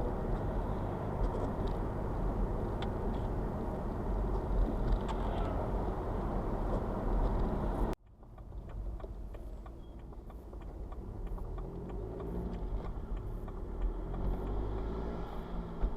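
A BMW 116d with the 2.0-litre N47 diesel engine driving, engine and road noise heard in the car. About halfway through, the sound drops sharply to a quieter stretch, where the engine pitch rises and falls faintly.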